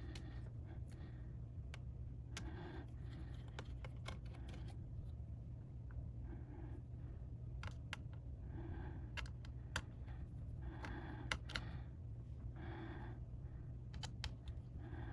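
Light clicks and taps of small repair tools on a laptop's internal parts, scattered irregularly, over a steady low hum. Soft breathing comes and goes about every two seconds.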